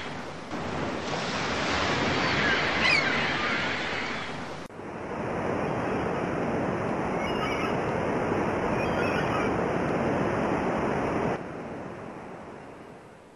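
Sea waves and wind, a steady rushing of surf, with a high bird cry about three seconds in. The sound cuts abruptly to another stretch of surf about two-thirds of the way through, drops in level, and fades out at the end.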